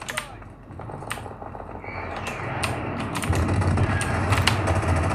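First-person shooter game audio: a low drone that swells about three seconds in, with scattered sharp clicks.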